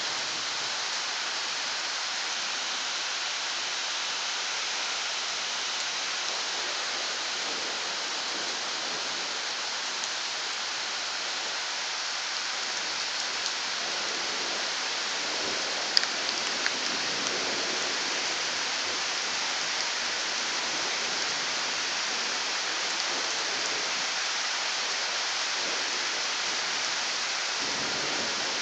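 Steady rain falling, an even hiss, with one sharp tick about halfway through and a few fainter ones after it.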